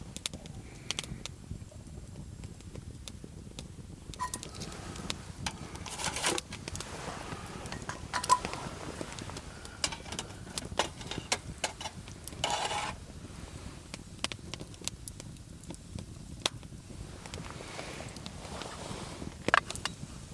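Wood campfire crackling in scattered sharp clicks over a low rumble, with a few light metal clinks from cooking gear and a brief rustle about midway.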